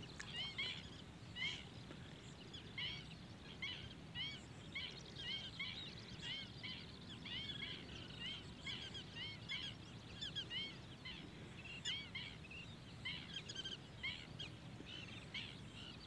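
A flock of birds calling: many short, rising chirps, several a second, over a low, steady background noise.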